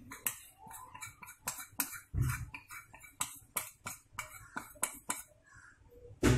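A metal spoon knocks and scrapes cornflour out of a small bowl into a stainless-steel mixing bowl of chicken: about a dozen quick, sharp clicks and taps at an uneven pace. There is a dull thump about two seconds in and a louder knock at the very end.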